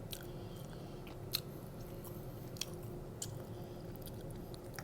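Close-up mouth sounds of someone chewing soft cheesy pizza fries, with a handful of short, sharp wet clicks scattered through, over the steady hum of a room air conditioner.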